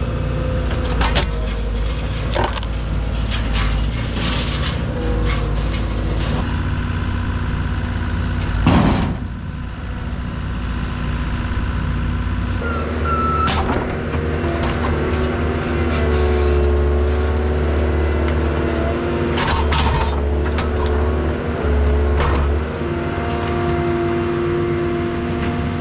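Skid steer engine running steadily while heavy ash logs are handled and loaded into a truck bed, with repeated knocks and clunks and one loud thump about nine seconds in. The engine note changes about halfway through.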